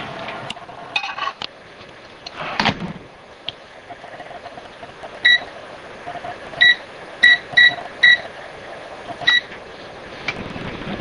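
Sharp microwave oven's keypad beeping as the cooking time is set: six short, high beeps spread over about four seconds. Before them come a few knocks and a clunk in the first three seconds.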